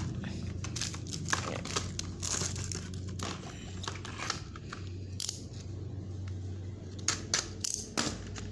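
Small cardboard gift boxes and their plastic wrapping rustling and crinkling as they are handled and slid open by hand, with scattered irregular clicks and taps over a faint steady low hum.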